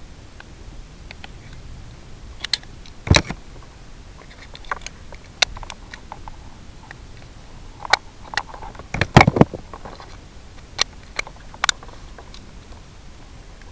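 Scattered sharp clicks and knocks over a steady hiss, with a loud knock about three seconds in and a cluster of them around nine seconds.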